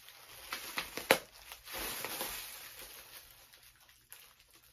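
Plastic bubble wrap crinkling and rustling as it is unwrapped by hand, with a few sharp crackles, the loudest about a second in, then fading out near the end.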